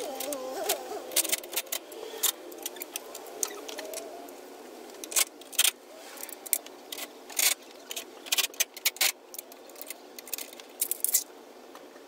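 Irregular clusters of sharp clicks and light metallic clinks from hand tools and metal parts being handled while a car's front end is put back together.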